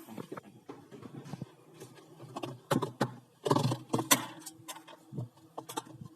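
Tools and metal parts being handled: a run of clinks and knocks, busiest in the middle, over a steady low hum.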